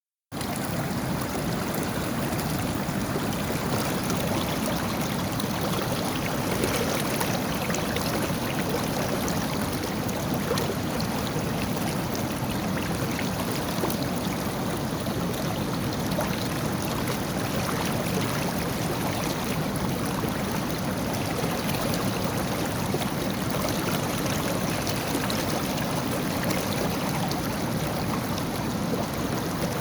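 River water flowing steadily over its bed, a continuous rushing and gurgling.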